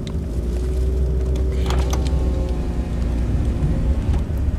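Steady low engine and road rumble heard from inside the cabin of a moving car, with a few light clicks and a faint held tone over it.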